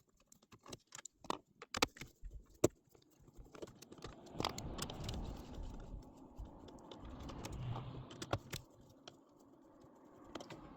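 Torx screwdriver working out the corner screws that hold a VW Golf Mk6's factory radio: small sharp metallic clicks and taps for about three seconds, then several seconds of steadier scraping and rattling that dies down near the end.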